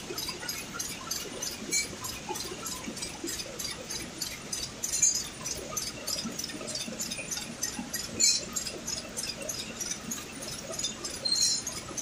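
Warp knitting machine running, a steady mechanical clatter of about four clicks a second over a low hum, with a few louder metallic clinks.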